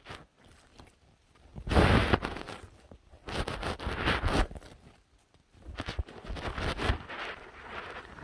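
Footsteps and rustling through forest undergrowth, coming in several irregular noisy bursts; the loudest is about two seconds in.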